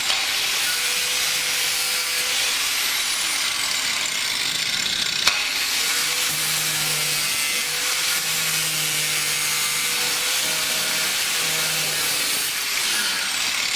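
Angle grinder's abrasive disc cutting into an iPhone's stainless-steel frame and glass, a steady high-pitched grinding hiss, with a sharp click about five seconds in.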